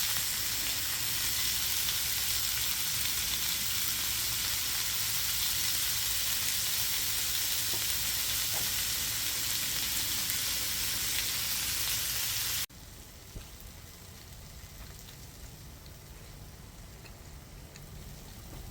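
Food sizzling steadily in a hot pan, a constant hiss that cuts off abruptly about two-thirds of the way through, leaving a much quieter background with a low rumble.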